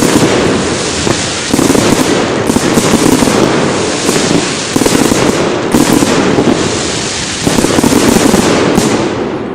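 Fireworks display going off in a dense, continuous barrage of bangs and crackle that surges in waves, easing off near the end.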